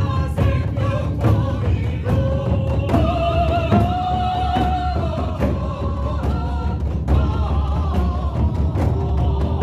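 Korean buk drum beaten in a steady rhythm, about three strokes a second, under a melody of long held notes that step from one pitch to the next, as ritual music.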